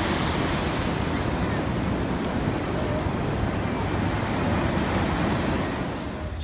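Ocean surf breaking and washing up the shore in a steady rush, with wind rumbling on the microphone. The sound drops a little near the end.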